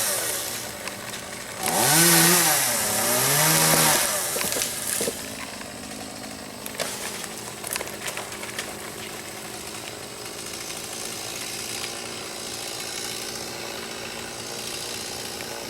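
Two-stroke chainsaw revved hard, its pitch rising and falling, for about two seconds, then left running steadily at lower speed. A few sharp knocks come about halfway through.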